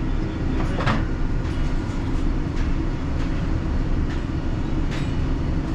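Steady low rumble of background machinery or ventilation, with a few light clicks and snips as a wire is stripped with linesman's pliers.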